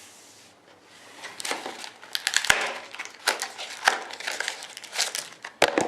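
Plastic wrapper of a trading card pack crinkling and crackling as it is handled and torn open. It begins about a second and a half in as a run of quick, sharp crinkles.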